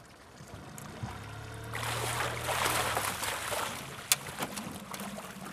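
Hooked Chinook salmon thrashing and splashing at the surface as it is drawn into a landing net, mostly from about two to three and a half seconds in, over a low steady hum. There is a sharp knock about four seconds in.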